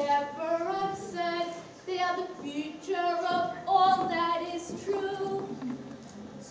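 Children singing a song in high voices, with held notes that step up and down in pitch.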